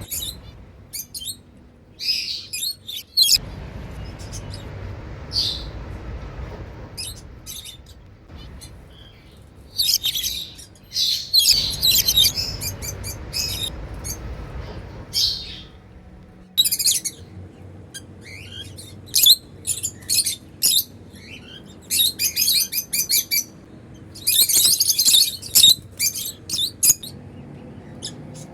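African lovebirds chirping: many short, sharp, high-pitched chirps and squeaks in quick runs, busiest a few seconds before the end.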